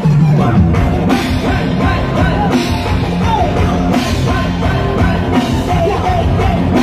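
Live band playing loud rock music, a drum kit beating steadily under guitars.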